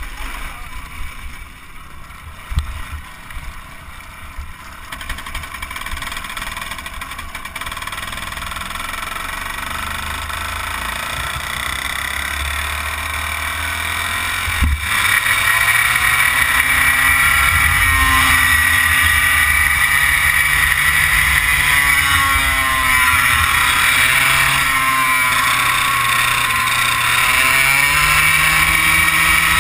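100cc two-stroke kart engine heard onboard, quieter at first and growing louder, then from about halfway running hard, its pitch repeatedly rising and falling as it revs up and down. A couple of short sharp knocks stand out, one early and one about halfway.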